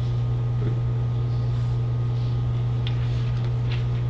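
Steady low electrical hum with a faint hiss, with a couple of faint clicks near the end.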